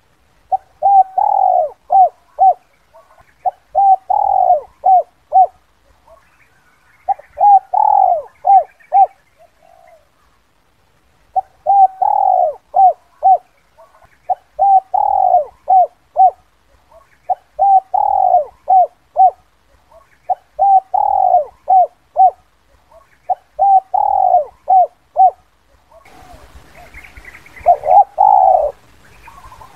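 Spotted dove (Spilopelia chinensis) cooing in its "kuk 2" call: a repeated phrase of one longer coo followed by a few short clipped notes, about one phrase every three seconds. It is used as a lure call for wild doves.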